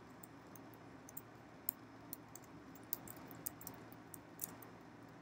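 Faint typing on a computer keyboard: a dozen or so irregular keystroke clicks over a steady low hum.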